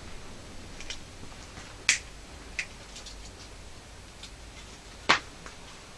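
Sharp metallic ticks from the metal kettle and aluminium alcohol stove as they heat over the flame. Two loud ticks come about two and five seconds in, with fainter ones scattered between.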